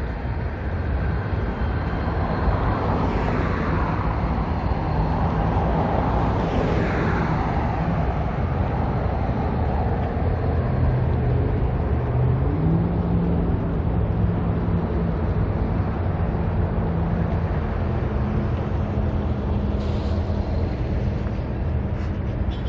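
Road traffic passing close by. Vehicles go by with falling whooshes about 3 and 7 seconds in, over a steady low engine drone that steps up in pitch about halfway through.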